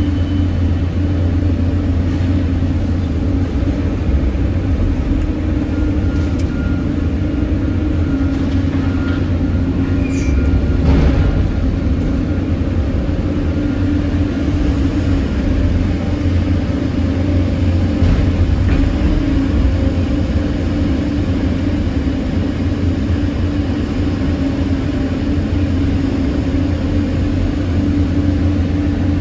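Caterpillar 320D excavator's six-cylinder diesel engine running steadily, heard from inside the cab, while the boom swings a full bucket of earth. It swells briefly about eleven seconds in.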